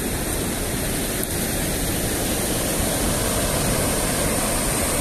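Steady rushing of river water pouring over a weir's spillway.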